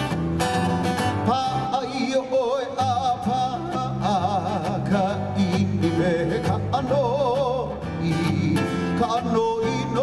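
Hawaiian song for hula: a voice holding long notes with a wide vibrato over strummed plucked strings and a steady bass line.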